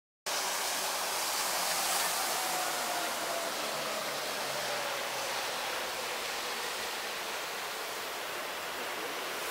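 Steady outdoor rushing noise, with a faint falling whine from about two to five seconds in.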